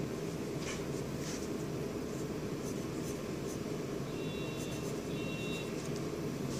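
Pencil tip scratching lightly on lined notebook paper in short, separate drawing strokes, over a steady low background hum.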